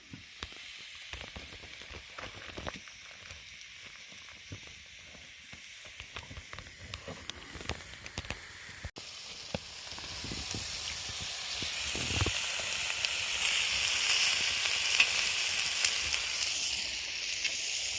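Food frying in a hot pan, sizzling. For the first half there are only faint scattered clicks. About nine seconds in the sizzling starts abruptly and grows louder.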